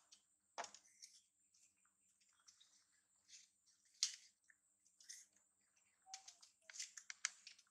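Faint, scattered crisp clicks and crunches of a knife slicing fruit and small monkeys chewing the slices. The sharpest click comes about four seconds in, and a quick flurry of them comes near the end.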